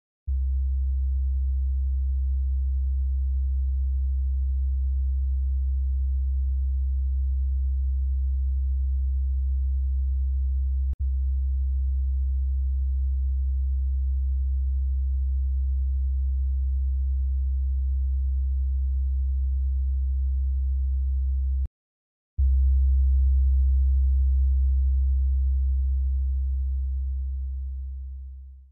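A low, steady electronic sine-tone drone. It is broken by a click about 11 seconds in and a short dropout about 22 seconds in, then comes back louder and fades out near the end.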